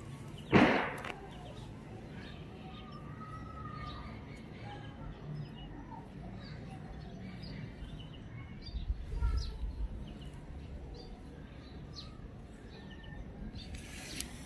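Fingers parting and working through long, thick hair close to the microphone while nits are picked out, with one sharp, loud rustle about half a second in and a low rumble of handling around nine seconds in.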